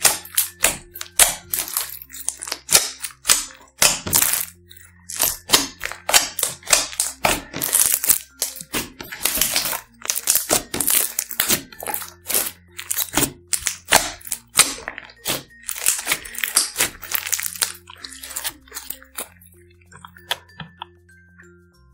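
Clear slime with beads and glitter mixed in being squished and kneaded by hand, giving rapid, irregular crackling and popping that thins out near the end. Soft background music plays under it.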